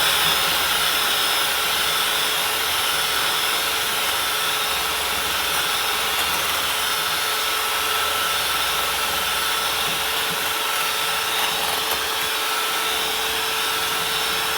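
Electric hand mixer running steadily at one speed, beating cake batter, then cutting off suddenly at the very end.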